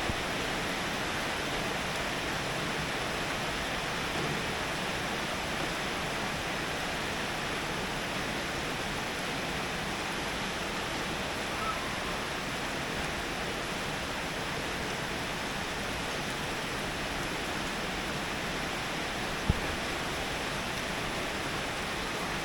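Heavy rain falling steadily, an even hiss, with a single brief knock about nineteen seconds in.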